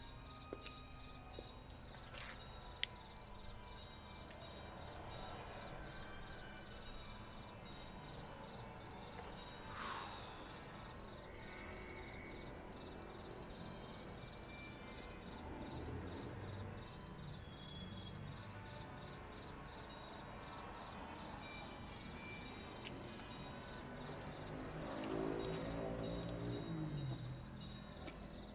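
Crickets chirping steadily, a faint high chirp repeating about twice a second. Near the end a louder pitched sound swells and falls away for a couple of seconds.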